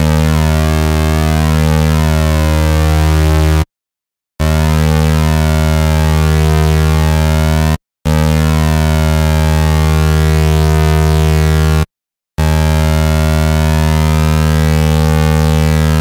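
FL Studio 3xOsc synthesizer playing a long held saw-wave note through the Fruity Flanger, a sweeping whoosh moving slowly through its harmonics as the flanger settings are changed. The note sounds about four times, each lasting close to four seconds with a brief break between.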